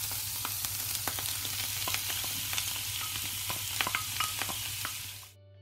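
Sliced mushrooms sizzling in hot olive oil in a frying pan: a steady hiss broken by scattered small pops and clicks. The sizzle cuts off suddenly near the end.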